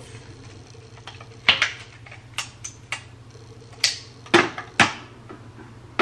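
Scattered sharp clicks and knocks of hands handling a new home espresso machine and its portafilter, over a steady low hum.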